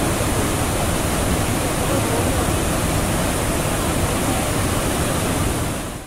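Waterfall in full flow, a wide curtain of water crashing over rock into a pool, making a steady rushing noise that fades out near the end.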